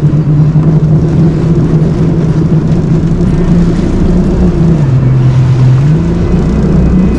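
Bass boat's outboard motor running at speed, with wind and water rushing past the hull. The engine note drops for about a second, about five seconds in, then climbs back up.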